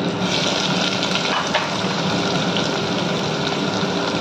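Chopped onions dropped into hot oil with cumin seeds and green chillies in an aluminium pressure cooker, sizzling steadily as they start to fry.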